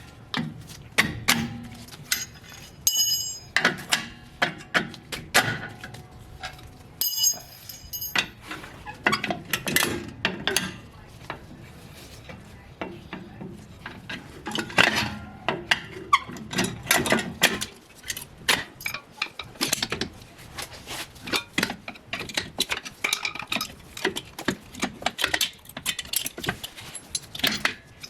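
Hand tools and steel drum-brake parts clinking and knocking in irregular clatter while a rear drum brake is being dismantled, with a couple of short ringing metallic clinks about three seconds in and again near eight seconds.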